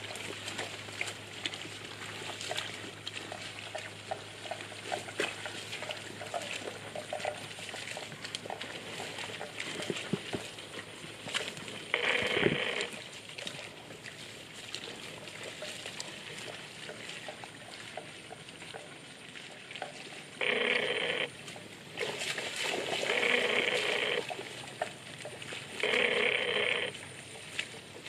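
Water buffalo grazing, tearing and chewing wet grass with a steady crackle. Four times a loud buzz cuts in, lasting from under a second to about two seconds, and stops suddenly.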